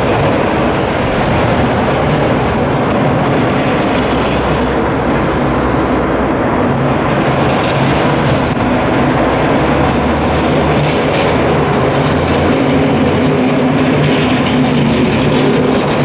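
Snowplow trucks driving along a snow-covered street: a steady, loud rumble, with a low engine drone that grows stronger about ten seconds in.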